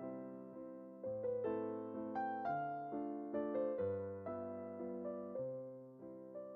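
Background music: gentle piano playing slow chords and a simple melody, each note struck and fading.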